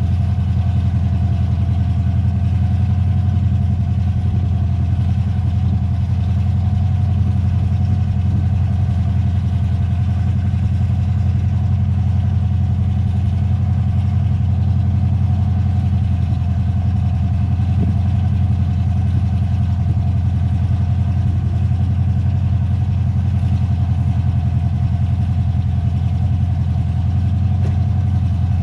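An engine running steadily at a constant idle, a low hum that holds one pitch throughout with no revving.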